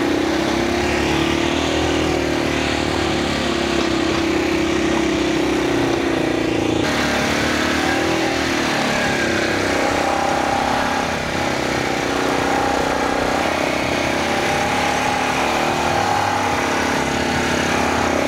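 ATV engine running steadily under load, its hum wavering slightly, as it tows a driveway grader's rake through loose dirt and gravel. The sound changes abruptly about seven seconds in.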